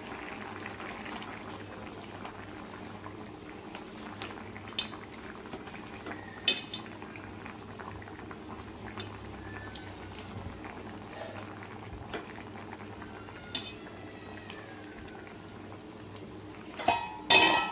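Fish curry gravy bubbling steadily in a frying pan on the stove, with a few sharp clinks of metal and a louder clatter of cookware near the end.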